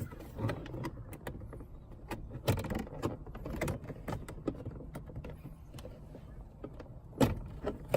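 Irregular clicks and knocks of plastic interior trim and a screwdriver being handled inside a car, with the sharpest ones about two and a half seconds in and near the end.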